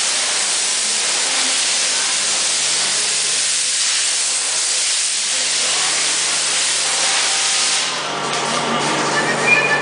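Loud, steady hiss of compressed air, stopping about eight seconds in.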